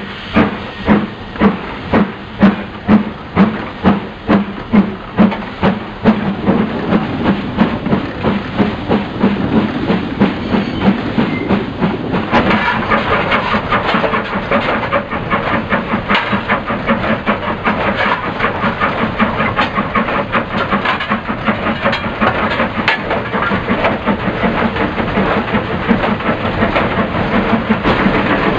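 LMS Black Five two-cylinder 4-6-0 steam locomotive 44767 heard from its own footplate as it pulls away: loud, sharp exhaust beats, about two a second at first, quicken over the first few seconds until they merge into a fast running chuff. About twelve seconds in, a louder rushing clatter of the moving engine joins.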